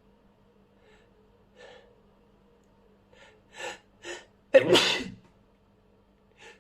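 A person sneezing: a few short catching breaths build up, the last two quicker and louder, then one loud sneeze bursts out about four and a half seconds in.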